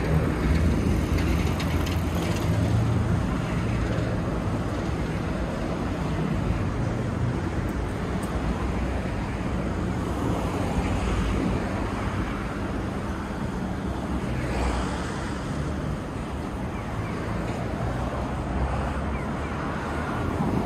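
Road traffic noise: a steady hum of passing cars, with a couple of vehicles swelling past about halfway and around three quarters of the way through.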